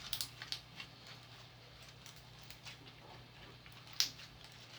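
Hands kneading homemade slime: faint, scattered squishes and sticky pops, with one louder pop about four seconds in.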